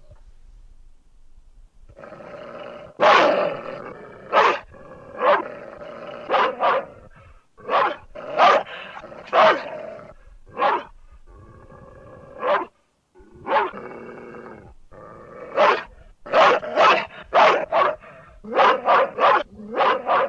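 Animated-film dog effects: a low growl with a long run of loud, sharp barks over it, about twenty in all, coming in quick bunches with a short break in the middle.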